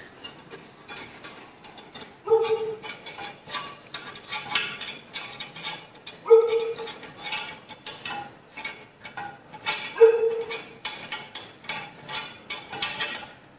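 Small metallic clicks and clinks of bolts and nuts being handled and threaded while a guide fence is fastened to a gem cutting machine's sheet-metal table. Three louder ringing metal knocks come at about two, six and ten seconds in.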